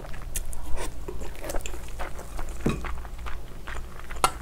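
Close-up eating sounds: wet chewing of a mouthful of rice with soy-marinated raw crab, with scattered small clicks and scrapes of a spoon and crab shell being handled. The sharpest click comes near the end.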